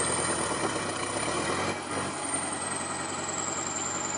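Vehicle engine running steadily at idle, with a thin high whine that drifts slightly in pitch.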